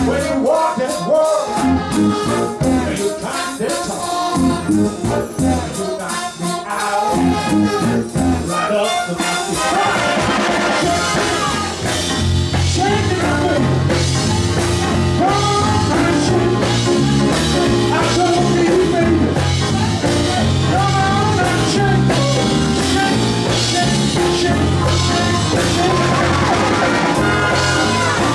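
A live band playing music. A steady, rhythmic bass line comes in about twelve seconds in, and the music is fuller from then on.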